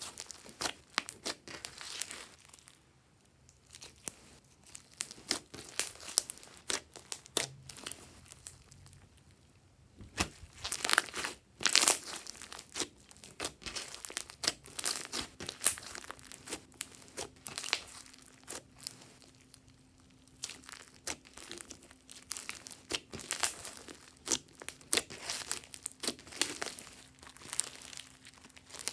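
Glossy slime worked by hand, squished, pressed and stretched, giving a dense run of small wet clicks and crackles as trapped air pops. The clicking thins out twice and is loudest in a cluster about ten to twelve seconds in.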